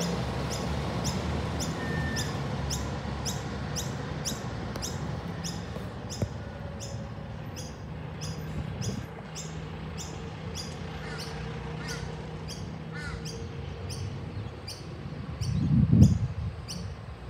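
Mercedes-Benz Atego fire truck's diesel engine running as the truck drives away, slowly fading. A steady high ticking about twice a second runs behind it, with a few faint bird chirps. Near the end there is a brief loud low rumble.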